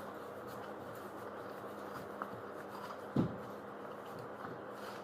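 Steady low electrical hum, with a faint click about two seconds in and one dull thump about three seconds in.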